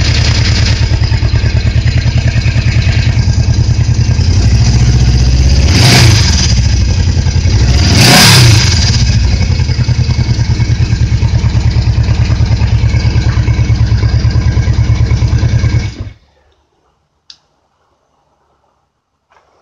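Yamaha motorcycle's air-cooled engine running with a fast, even pulse, revved briefly twice near the middle, then switched off suddenly about sixteen seconds in. A single faint click follows in the quiet.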